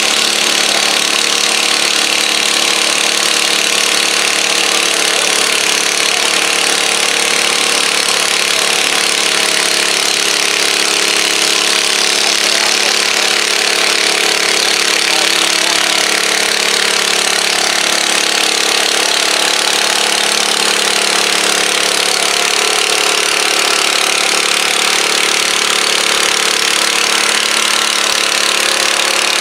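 Garden tractor's engine running hard under load as it pulls a weight-transfer sled along a dirt pulling track, a steady, loud drone.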